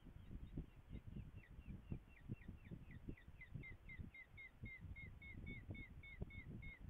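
A bird of prey calls a fast series of short, falling notes, about four a second, beginning just after the start. Low, irregular gusts of wind buffet the microphone underneath.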